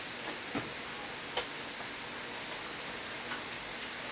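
A few soft clicks and taps as minced meat is shaped by gloved hands, weighed on a digital scale and set on a metal sheet pan, with the sharpest two about half a second and a second and a half in, over a steady hiss.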